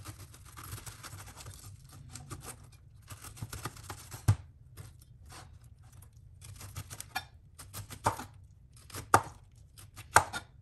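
Kitchen knife cutting a fresh pineapple on a cutting board: a stretch of scraping at first, then irregular knife strokes knocking on the board, the sharpest about four seconds in and several more near the end.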